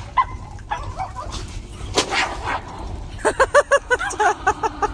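Dogs yelping and barking while play-fighting. From about three seconds in comes a quick run of short, high-pitched yaps, about six a second.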